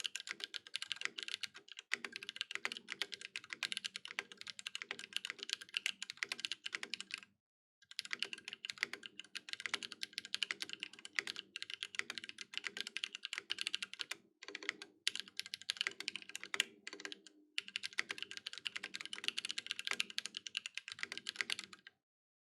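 Continuous typing on a Space65 custom mechanical keyboard with lubed Holy Panda tactile switches, a carbon fiber plate and GMK Olivia ABS keycaps, the board resting directly on the desk without a deskmat. Rapid key clacks with a few brief pauses, stopping just before the end.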